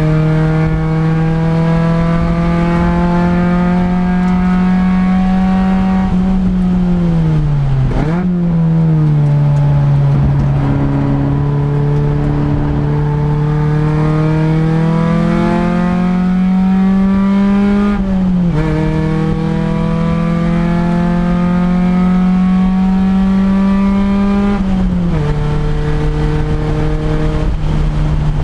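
Honda Integra race car's four-cylinder engine heard from inside the stripped cabin at speed, its note climbing slowly under throttle. The pitch falls sharply about six to eight seconds in, with a quick blip near eight seconds, dips briefly around eighteen seconds, and drops to a lower steady note at about twenty-five seconds.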